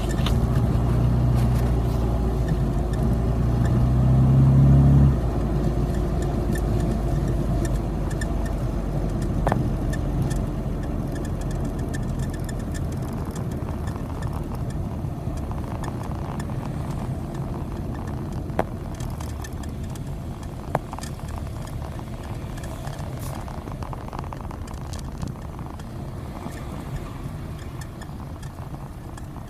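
Rover Mini running, its engine note strong and steady for the first five seconds, then a broader steady running noise that slowly fades. A few short high squeaks cut through, about a third of the way in and twice more past the middle: the 'kyu-kyu' abnormal noise the car is making.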